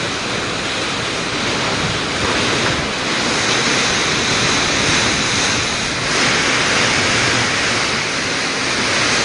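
Typhoon wind and heavy driving rain: a steady rushing noise that grows a little louder in gusts from about three seconds in.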